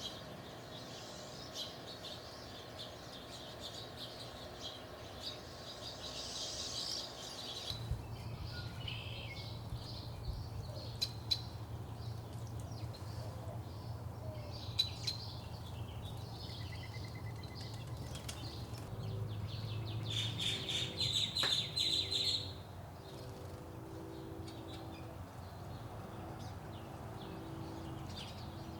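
Back-yard songbirds chirping and singing in short high calls and trills, busiest with a loud trill about two-thirds of the way through. From about two-thirds in, low repeated cooing notes join them, with a low steady hum underneath from about a quarter of the way in.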